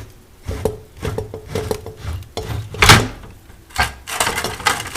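Refrigerator condensing unit being pulled out of its bay by hand: a string of metal knocks and clatters, with one sharp knock about three seconds in, then a stretch of scraping as it slides.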